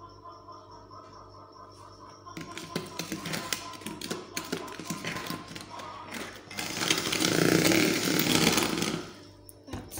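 Electric hand mixer starting up about two seconds in, its motor whirring and its beaters clattering in the bowl as it beats oil into egg batter; it runs loudest near the end and stops about a second before the end.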